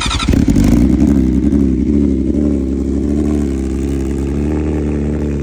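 BMW S1000RR inline-four with an Akrapovič slip-on exhaust cold-starting: it catches at once, runs up briefly, then settles into a steady idle.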